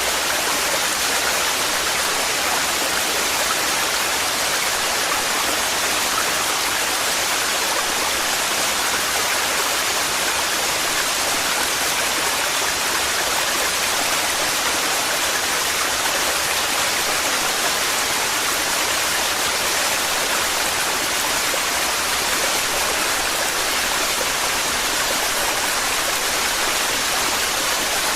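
Waterfall pouring heavily, a steady, unbroken rush of falling water.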